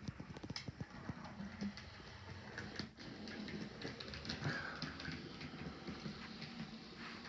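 Dapol model railcar running along the track, its wheels clicking over rail joints and pointwork, with a flurry of clicks in the first second or so and lighter ticking after, over a steady low hum.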